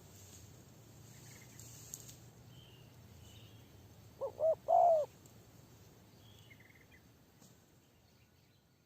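Spotted dove cooing once, a three-note call with the last note the longest, about four seconds in. Faint high chirps of small birds come and go around it.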